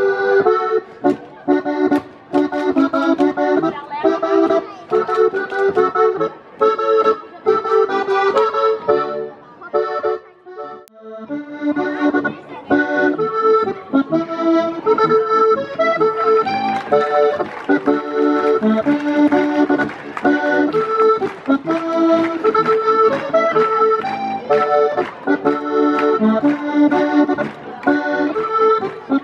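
Live traditional folk dance music led by an accordion, played for the dancers. The music stops briefly about ten seconds in, then the tune starts up again.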